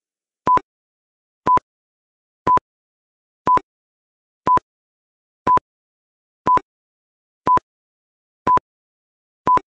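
Quiz countdown timer beeping: ten short electronic beeps of one steady pitch, one each second, as the count runs down from ten.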